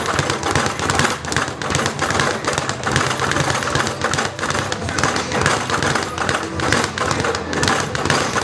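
Speed bag being punched continuously: a rapid, steady rhythm of thuds as the bag rebounds off the rebound board.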